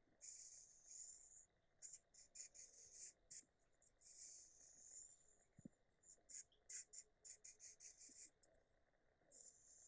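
Faint high-pitched scratchy noise in short irregular bursts, some in quick clusters.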